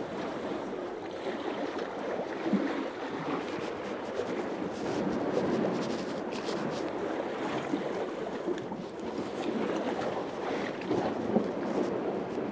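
Sea water washing and lapping steadily against a pier, a continuous rushing with a couple of small sharp knocks, one early and one near the end.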